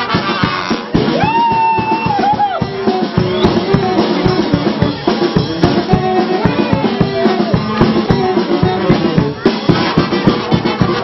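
Brass band music with drums playing a dance tune: long held brass notes and a moving melody over a steady, fast drum beat.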